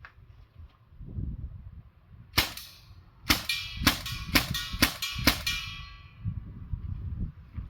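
Sig Sauer MCX CO2 pellet rifle firing: one sharp shot, then five quick shots about two a second, each a sharp crack followed by metallic ringing.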